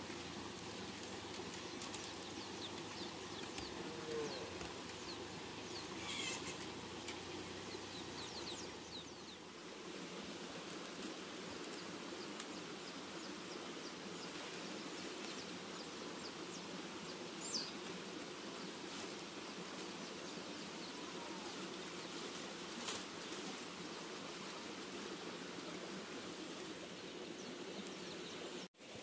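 Steady outdoor background hiss with a few brief bird chirps and occasional light clicks.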